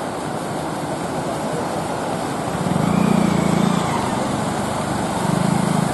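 Auto rickshaws and motorcycles driving through shallow floodwater: small engines running over a steady wash of splashing water. An engine hum grows louder about three seconds in and again near the end, as a vehicle passes close.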